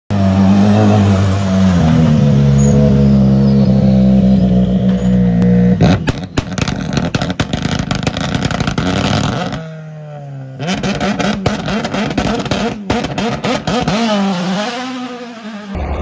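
Ford Puma Rally1 hybrid rally car's turbocharged 1.6-litre four-cylinder engine. It idles on a steady note, then runs roughly with rapid crackling, and the revs dip and rise again near the end.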